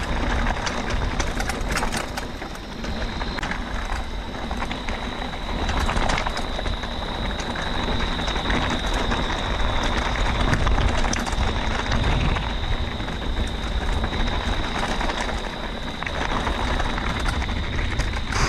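Mountain bike rolling over a rough dirt trail, with a continuous clatter of small knocks and rattles and wind rumbling on the microphone. A steady high-pitched tone runs throughout.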